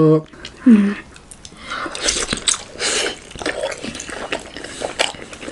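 Two people biting into and chewing large, juicy steamed Nepali momos: a brief hum near the start, then a dense run of short smacking, squelching mouth clicks.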